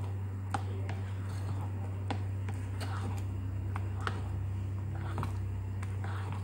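A spatula stirring and folding thick banana cake batter in a ceramic bowl: soft wet squishing with a light click of the spatula against the bowl about once a second, over a steady low hum.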